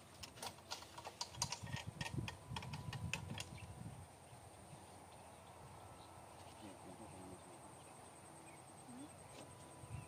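A quick run of sharp clicks with low rustling for the first four seconds or so, then a quiet outdoor background with a faint, steady, high-pitched buzz.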